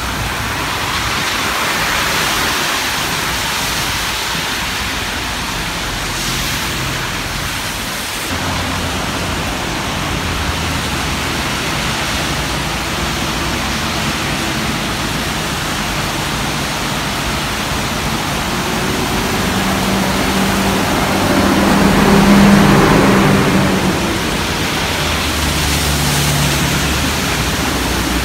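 Steady road-traffic noise with vehicles passing. A large engine, most likely a bus, passes close and is loudest about three-quarters of the way through, its low hum rising and then fading.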